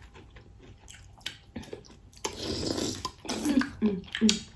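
Close-up eating sounds of a saucy seafood boil: wet chewing, lip smacks and scattered small clicks, with a longer wet squelching stretch a little over two seconds in. A short voiced murmur comes near the end.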